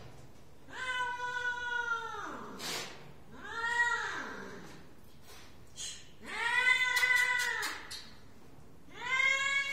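A trapped cat meowing four times, long drawn-out cries a couple of seconds apart, the first and third the longest. A few light clicks in between.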